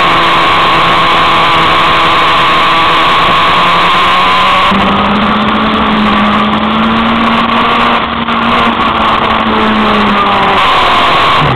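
Motorcycle engine running hard at track speed under heavy wind rush on the onboard microphone. The engine note steps up about five seconds in, then falls away near the end.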